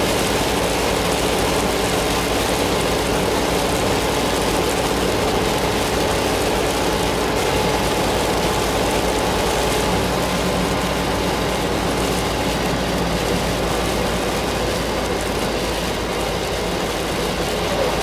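Inside a moving car on a rain-soaked highway: steady hiss of tyres on the wet road and rain on the car, over a low engine and road drone.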